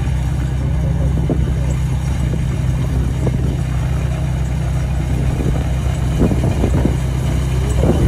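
Rice combine harvester's diesel engine running steadily under load as the machine cuts standing rice, a constant low hum.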